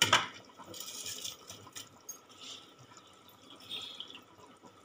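Biryani water and masala bubbling at the boil in a large aluminium pot, a faint steady hiss with scattered small bubble pops. The water has come to the boil, the point at which the rice goes in. A short sharp sound comes right at the start.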